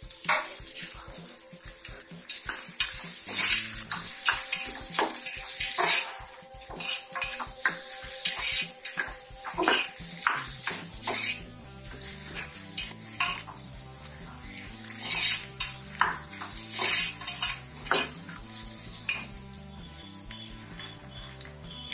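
Long slotted metal spatula scraping and clinking irregularly against the inside of an aluminium pressure cooker while stirring chopped onions and green capsicum frying in butter.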